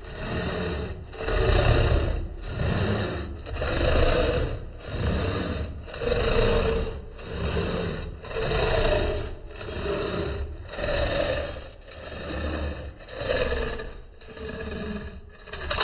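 Japanese hand saw cutting across a wooden board, with steady back-and-forth rasping strokes a little over one a second. The cut finishes near the end.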